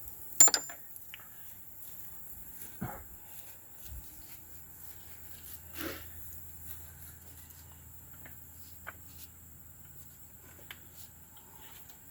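Scattered metal clanks and knocks from work on an ATV's rear end, the loudest a sharp clank with a short ring about half a second in, with fainter knocks every few seconds after. A faint low hum comes in about four seconds in.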